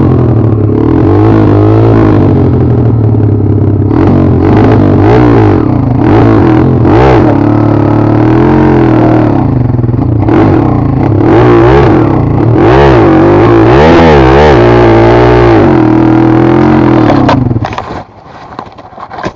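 Chinese two-stroke enduro motorcycle engine revving up and down again and again while the bike is stuck and not moving, then cutting out suddenly near the end.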